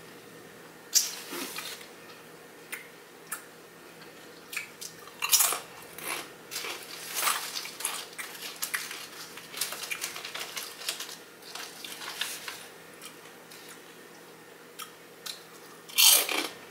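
Close-miked chewing of a mouthful of sub sandwich, with scattered wet mouth clicks and smacks. About 16 seconds in there is a louder rustle as the foil chip bag is handled.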